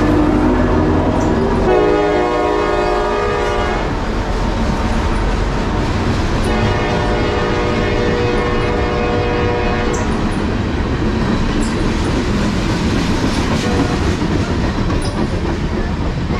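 Freight train passing close by, its horn sounding twice: a blast of about two seconds, then a longer one of about three and a half seconds, over the steady rumble of the locomotive and rolling cars. Rail clicks follow as the cars roll past.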